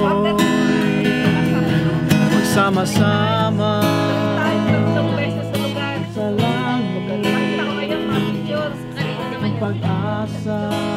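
Steel-string acoustic guitar strummed in a steady rhythm of chords.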